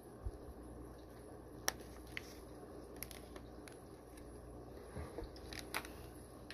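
Faint handling noises as bagged fish are set into plastic acclimation containers: a few sharp light clicks and taps and a couple of soft thumps, over a low steady hum.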